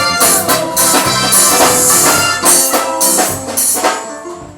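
Music with instruments and a steady, evenly spaced beat, dropping in level near the end.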